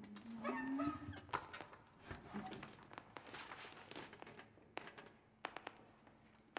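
Metal microphone stand being handled and adjusted: scattered light clicks and knocks, with a short rising squeak in the first second.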